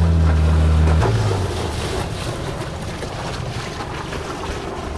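A steady low hum stops abruptly about a second in. Then wind buffets the microphone and water rushes along the hull of a sailboat under way.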